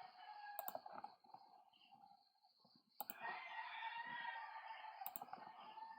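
Three computer mouse clicks, spaced about two seconds apart, over faint room noise.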